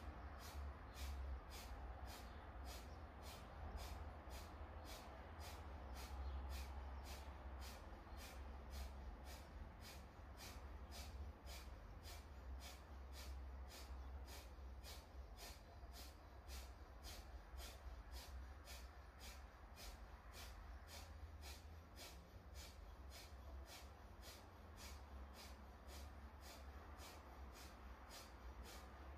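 A person's forced nasal exhalations, each pushed out by a small pulse of the abdomen, in a Kundalini yoga breathing exercise: short, sharp, even puffs through the nose at about two a second, over a low steady hum.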